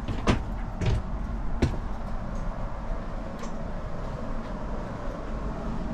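Steady low rumble of a train running, heard from inside the carriage, with three sharp knocks in the first two seconds.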